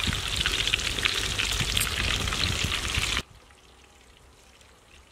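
Battered chicken pieces deep-frying in hot oil in an iron kadai: a dense, steady sizzle full of small crackles. It cuts off suddenly about three seconds in, leaving only a faint background.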